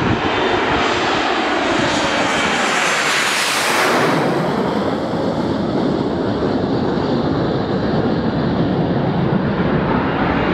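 BAE Hawk jet trainers passing low overhead: the engine roar swells to its loudest with a high whine about four seconds in, the pitch falls away sharply as they pass, and a lower rumble carries on as they climb away.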